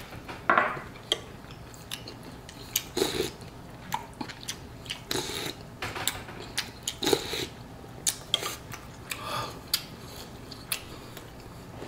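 A person eating a bowl of pho noodle soup: chewing and slurping noodles and broth in short noisy snatches a second or two apart, with a few light clicks of chopsticks and a spoon against the bowl.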